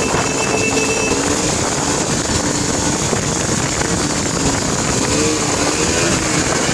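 Bajaj Pulsar 200 motorcycle's single-cylinder engine running at steady throttle while the bike is held in a wheelie, with wind rushing over the microphone. The engine's pitch wavers a little near the end.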